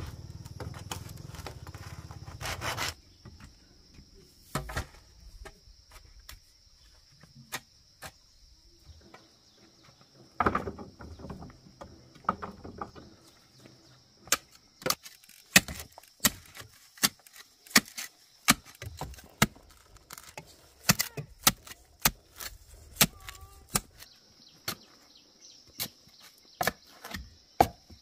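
A hand saw cutting through bamboo with steady back-and-forth strokes, stopping about three seconds in. After that comes a string of sharp wooden knocks, roughly one a second, through the second half. A steady high insect drone carries on underneath.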